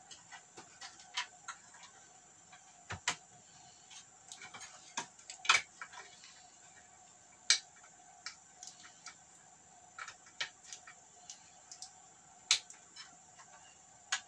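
Irregular light clicks and knocks of a plasma TV's power supply board and metal chassis parts being handled as the board is fitted back in place and screwed down, over a faint steady high whine.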